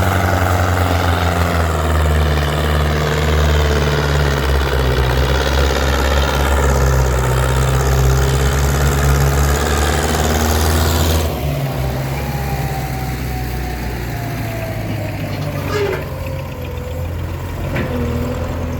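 Combine harvester's diesel engine running steadily under load, its drone dropping abruptly to a quieter level about halfway through, after which a thin whine slowly falls in pitch.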